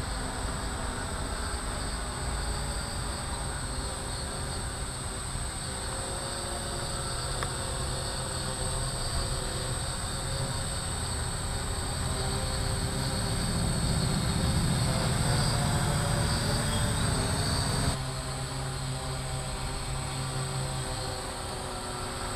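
RCTimer 800 hexacopter's six brushless motors and 13-inch carbon-fibre props whirring steadily as it hovers and flies close by. The sound swells a little past the middle, then drops off abruptly near the end.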